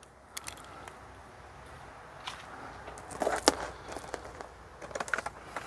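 Footsteps on dry leaves and sawdust, with scattered light knocks and rustles.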